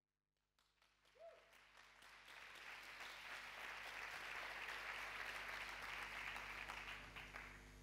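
Audience applauding, building up over the first few seconds and dying away near the end, over a steady electrical hum.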